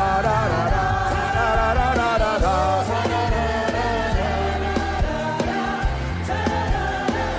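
Live gospel worship music: voices singing together over a band with a sustained bass line and a steady beat.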